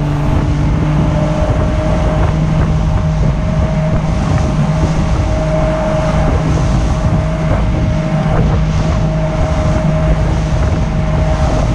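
Motorboat engine running at high trolling speed, with a steady hum that holds one pitch. Wind buffets the microphone and the boat's wake rushes past.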